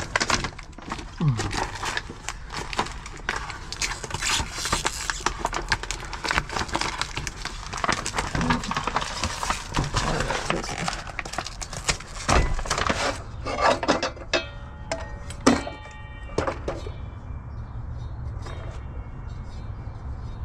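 Hard objects, mostly metal, being handled: a dense run of irregular clattering, clinking and knocking. After about 14 seconds it gives way to a few brief ringing tones and then a steady low hum.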